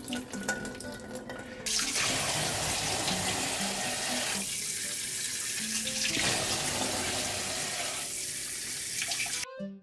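Kitchen tap running into a stainless-steel bowl in a steel sink, splashing over a block of tofu being rinsed. A few light knocks come first; the flow starts about two seconds in and cuts off abruptly near the end.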